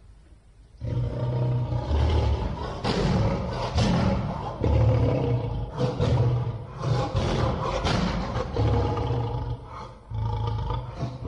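Lion roar sound effect: several long, loud roars in a row, starting about a second in, deep and rumbling, with short breaks between them.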